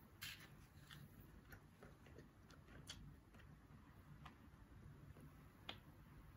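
Near silence, a low room hum with a few faint, irregular clicks and ticks, the sharpest near the end.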